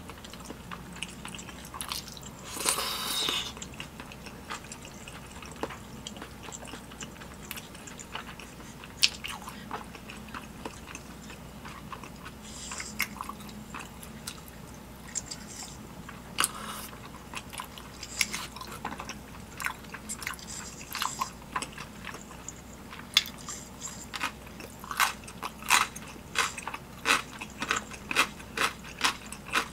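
Close-up chewing and wet mouth clicks of someone eating spicy tteokbokki rice cakes, with a short noisy burst about three seconds in and a steady run of chewing clicks, about two a second, near the end.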